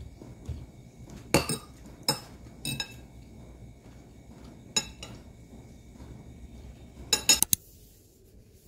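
Metal spoon and fork clinking against a ceramic bowl while eating: a few sharp clinks spread out, then a quick run of three near the end.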